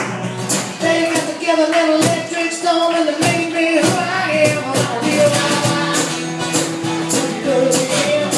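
Live acoustic music: a man singing over a strummed acoustic guitar, with a cajon beating out a steady rhythm.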